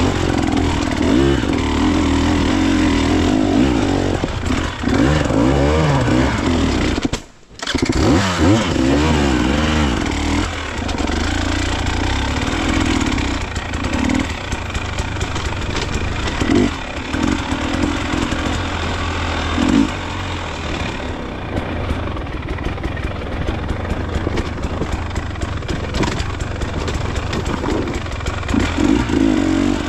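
Dirt bike engine working up a rocky trail, its revs rising and falling with repeated throttle blips. About seven seconds in the sound drops away for a moment, then the engine comes back revving.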